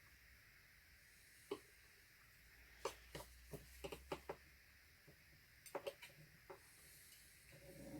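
Faint, scattered clicks and taps from scraping excess paint off the edges of a freshly poured acrylic canvas, in small clusters over a quiet room.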